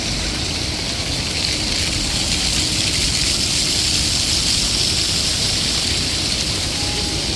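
Fountain water splashing down in a steady rushing hiss, with a low rumble underneath.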